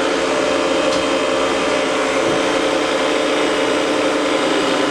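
Myford MG12-HA hydraulic cylindrical grinder running: its motors, hydraulic pump and wheel spindle make a steady machine noise with a few steady tones through it.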